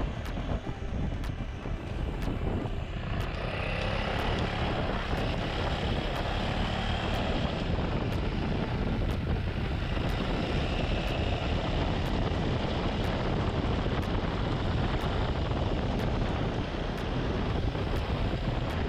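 Motorcycle engine running steadily while riding, with heavy wind rushing over the camera microphone.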